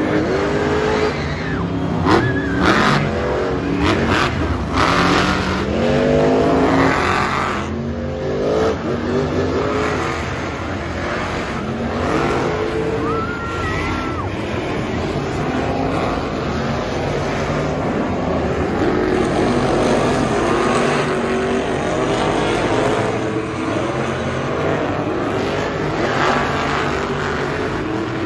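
Several monster trucks' supercharged V8 engines revving over and over, their pitch climbing and dropping with each blip of the throttle, over a steady engine din.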